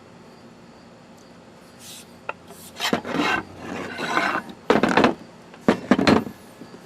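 Wooden adze handle being shaped by hand, a tool rasping across the wood in about five strokes of uneven length that begin about two seconds in, taking wood off so the handle fits the adze head.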